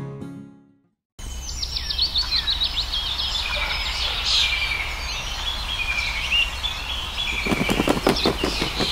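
Guitar music fades out, and after a moment of silence birds chirp with many quick, high twitters over a low steady hum. Near the end a rapid flurry of soft beats joins the chirping.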